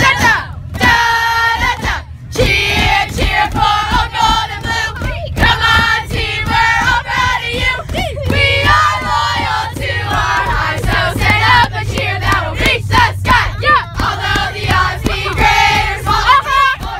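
A busload of teenage girls singing and shouting along together to a song with a steady beat, with the bus engine's low rumble underneath.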